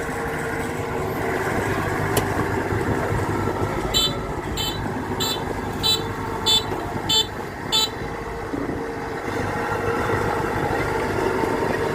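Kubota DC-93 combine harvester's diesel engine running steadily under load. About four seconds in, a high electronic beeper gives seven short, evenly spaced beeps, a little under two a second, then stops.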